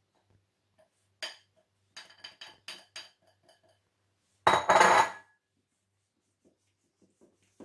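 A utensil scraping and tapping a glass bowl to knock flour out: one clink, then a quick run of about six ringing clinks. About four and a half seconds in comes a much louder clatter lasting half a second, followed by faint scraping as the flour is stirred into the oil in a stainless steel bowl.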